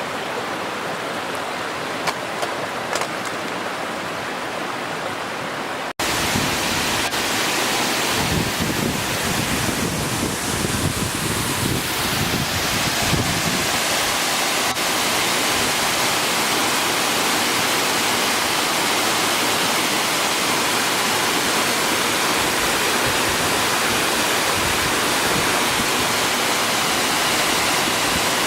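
Waterfall: water pouring and splashing as a steady rushing noise. About six seconds in it suddenly becomes louder and brighter.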